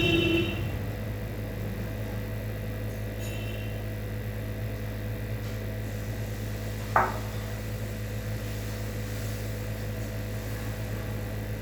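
Steady electrical hum with light kitchen handling sounds: a short ringing clink of a metal or glass utensil at the start, a fainter ring about three seconds in, and one sharp knock about seven seconds in.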